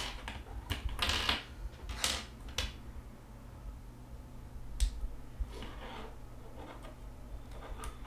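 Scattered small plastic clicks and taps as a USB Type-C adapter and a USB flash drive on an OTG cable are handled and plugged into a phone's charging port.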